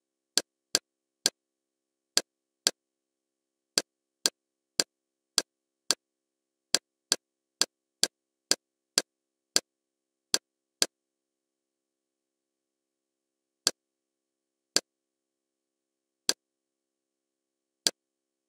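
Kodi menu navigation sound effects: a string of short, sharp, identical clicks, one per step through the menus, about two a second for the first eleven seconds, then four more spaced a second or more apart, with silence in between.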